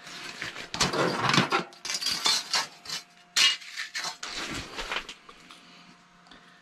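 Pliers clinking and rattling against a lipless rattle bait as it is worked out of a walleye's mouth: a run of irregular metallic clinks for about five seconds, with one sharp click near the middle, over a faint steady hum.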